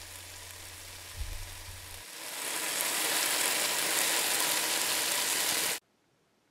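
Chicken strips sizzling on a Grill It stovetop grill plate, with a low hum under it for the first two seconds. The sizzle grows louder about two seconds in, then cuts off suddenly near the end.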